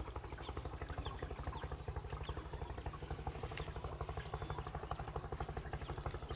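A small engine running steadily, a low even chugging of about eight pulses a second, with a thin, steady high whine above it.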